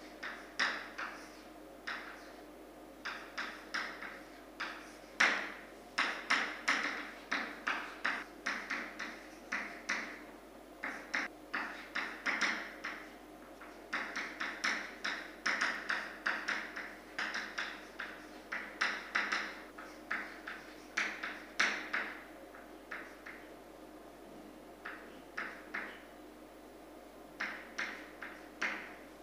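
Chalk writing on a chalkboard: quick runs of taps and short scratchy strokes as figures and symbols go up, broken by pauses, with a longer pause a few seconds before the end.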